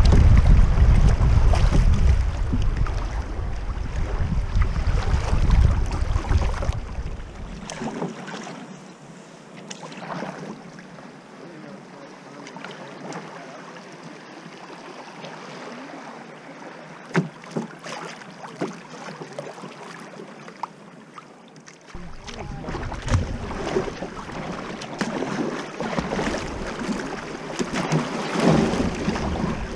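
Kayak running through shallow riffles on a small river: water rushing and splashing around the hull, with wind buffeting the microphone for the first several seconds and again in the last several seconds. The middle stretch is calmer, with a few sharp splashes.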